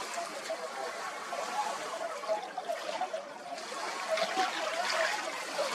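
Running water with many distant waterfowl calling at once, a dense scatter of short honking calls over a steady wash of water.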